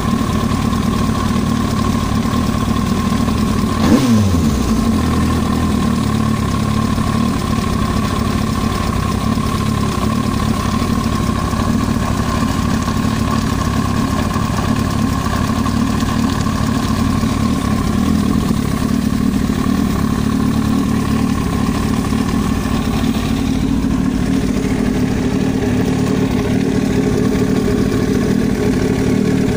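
Yamaha YZF-R1 inline-four engine idling steadily, with one quick throttle blip about four seconds in that falls straight back to idle. The owner is chasing an extraneous knocking noise from the cylinder head.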